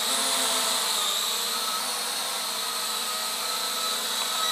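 P12 Pro foldable toy quadcopter flying, its small propellers and motors giving a steady high-pitched whine.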